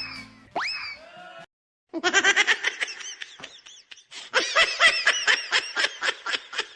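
Sound effects: two quick rising whistle-like glides, then from about two seconds in a fast, high-pitched cartoon laugh that chatters on in rapid bursts.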